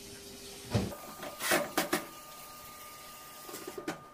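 Work on a clothes dryer's rear panel as its screws are refitted: a thump, then a few short sharp clattering bursts and, near the end, a run of small clicks and a sharp knock.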